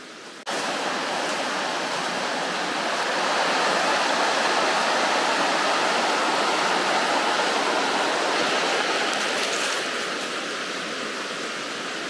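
Valley stream flowing: a steady rush of water that starts suddenly about half a second in, grows a little louder in the middle and eases slightly near the end.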